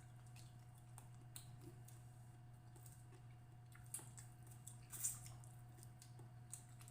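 Faint eating sounds: a few scattered small clicks and soft mouth noises of chewing, the loudest about five seconds in, over a steady low hum.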